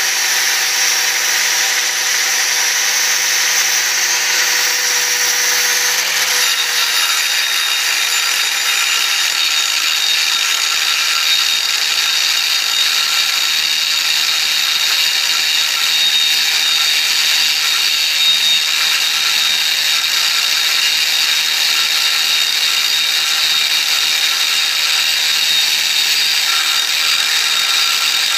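Angle grinder running steadily, its abrasive disc grinding down the steel nut on the end of a ballast keel bolt, a continuous high whine over grinding hiss. Its tone shifts slightly about six seconds in.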